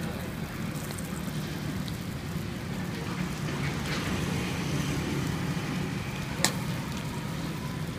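Skewered fish sizzling on a charcoal grill, a steady crackling hiss over a low rumble, with one sharp click about six and a half seconds in.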